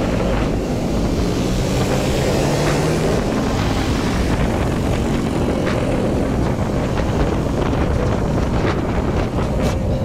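Motorcycle engine running while riding, under heavy wind noise on the microphone.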